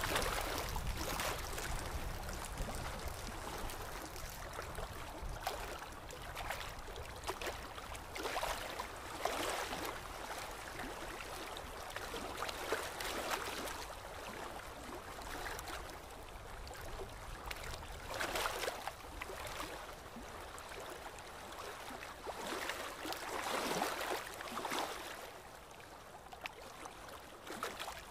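Running water trickling and gurgling steadily, swelling and easing every few seconds.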